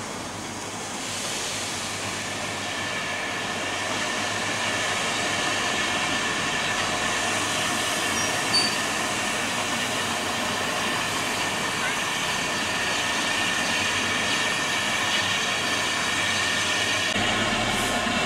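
Steady hiss of steam from 0-6-0T tank locomotive No.1 'Lord Roberts', built by Neilson Reid in 1899, as it moves slowly into the platform, steam venting from its top and from its cylinder drain cocks. The hiss swells about a second in and holds, with one short sharp click partway through.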